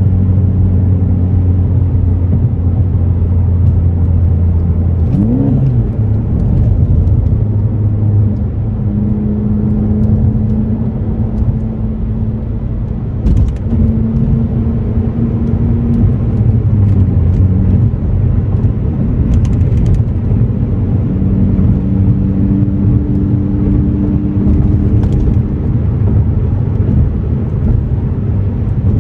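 2018 Ford Focus ST's turbocharged 2.0-litre four-cylinder, with an AWE axle-back exhaust, running while the car is driven. A steady low drone gives way about five seconds in to a quick rise and fall in revs, and then the engine note holds at several different pitches in turn.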